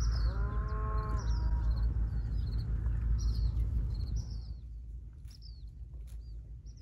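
Low wind rumble on the microphone that dies away after about four seconds. About half a second in comes a single low, drawn-out animal call lasting about a second. Small birds chirp now and then throughout.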